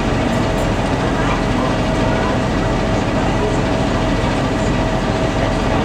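Passenger motor boat Moskva-117's diesel engine running steadily under way: a constant drone with a steady whine over it.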